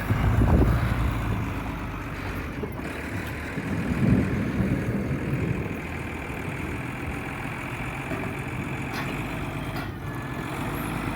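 Forklift engine running steadily as it works, rising briefly about half a second in and again around four seconds, with a few faint knocks.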